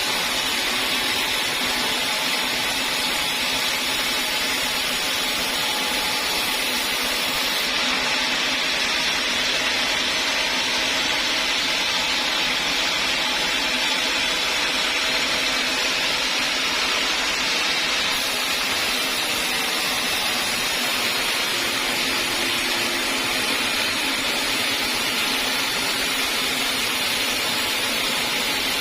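Sawmill saw running steadily, an even machine noise that does not change in level.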